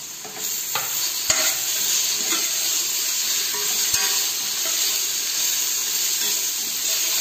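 Sliced onions and green chillies sizzling in hot oil in an open pressure cooker while a spatula stirs and scrapes them. There are a couple of sharp knocks of the spatula against the pot, about a second in and again near the middle.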